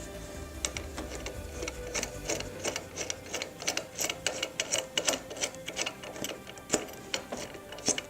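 Background music with steady held tones, under many sharp irregular clicks and ticks, several a second, strongest in the middle.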